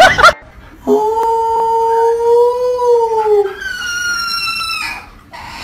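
Husky-type dogs howling: one long, steady howl that rises a little and then falls, followed about three and a half seconds in by a higher, thinner puppy howl. A brief loud blast cuts off right at the start.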